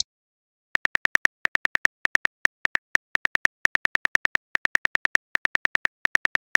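Keyboard typing clicks from a texting-story app's on-screen keyboard, short high ticks about six a second in runs with short gaps, as a message is typed out letter by letter. They start about three-quarters of a second in.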